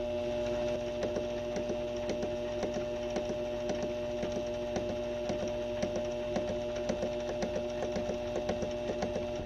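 Benchtop metalworking machine tool running, its motor and gearing giving a steady whine with a regular ticking about five or six times a second.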